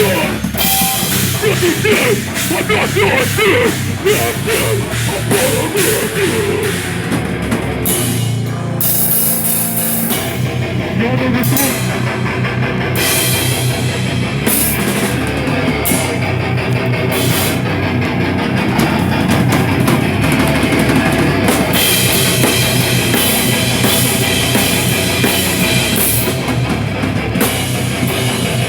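A live rock band playing loud, heavy music: drum kit with crashing cymbals and distorted electric guitars, easing back briefly about eight seconds in before the full band comes back in.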